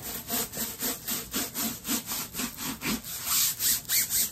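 Rhythmic rubbing and swishing, about four strokes a second, as hands work a large rolled diamond painting canvas and its plastic cover film slides and rubs.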